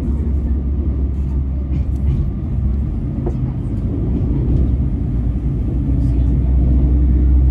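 Steady low rumble of a KiHa 47 diesel railcar running, heard from inside the passenger cabin, growing a little louder toward the end.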